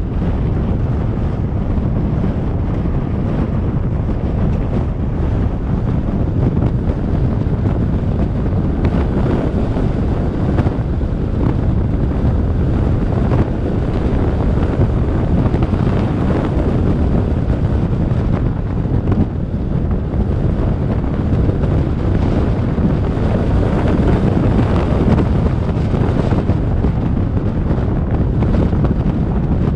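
Steady, loud wind rumble on the camera's microphone while a Jeep drives a gravel desert track, with road and vehicle noise underneath.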